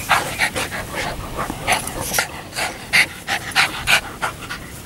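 Dogs panting hard at close range while play-fighting: a Maremma sheepdog puppy and a small Maltese–Shih Tzu mix. The panting comes as quick, irregular breathy puffs, several a second, with a few louder ones near the end.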